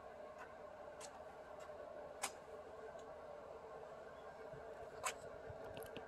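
Faint steady background hum with a few light scattered clicks, the loudest about two seconds in and another about five seconds in.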